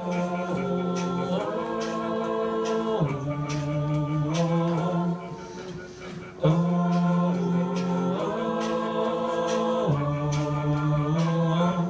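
A cappella vocal group singing wordless sustained chords over a sung bass line, the harmony shifting every second or two. It drops briefly about halfway through, then comes back in with the same chord sequence.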